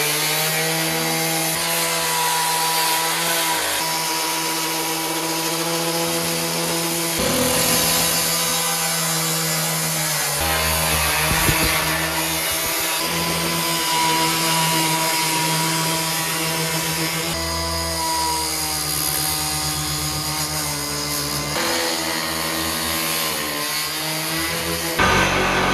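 Power tool cutting through a car's sheet-metal quarter panel, a steady motor whine whose pitch shifts a few times as the cut goes on, growing louder and harsher near the end.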